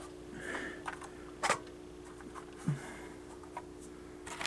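Scattered plastic clicks and scrapes from a System Sensor i3 smoke detector being twisted off its mounting base, with one sharper click about one and a half seconds in, over a faint steady hum.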